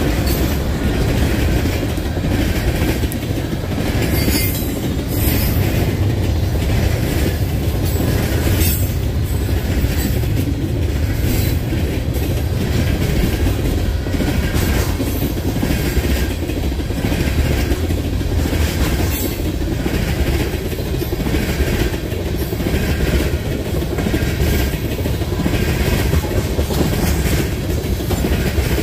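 A CP/CPKC freight train rolling past at speed: a steady low rumble of cars on the rails with the regular clickety-clack of wheels over rail joints.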